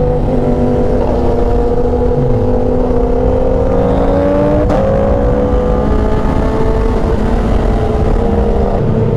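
Sport motorcycle engine under way, its pitch rising steadily for a few seconds, then dropping with a click about halfway through at a gearshift, and running steady after. Heavy wind rumble over the microphone.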